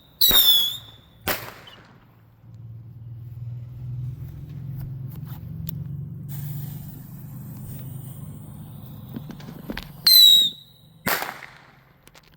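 Fireworks going off twice: each time a short, loud, shrill whistle is followed about a second later by a sharp bang. Between the two, a low steady rumble runs for several seconds.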